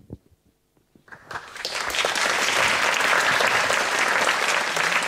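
Audience applauding: clapping starts about a second in and quickly swells to steady, dense applause.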